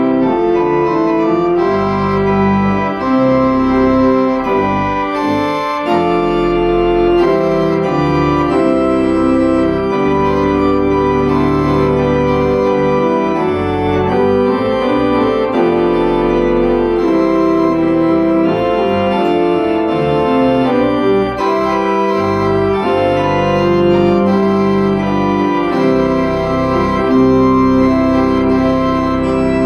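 Church organ playing a hymn in sustained full chords over a pedal bass line, the chords changing about once a second.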